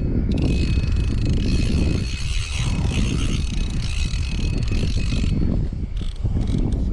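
Wind buffeting the microphone: a heavy, uneven low rumble with a steady hiss over it that drops away about five seconds in.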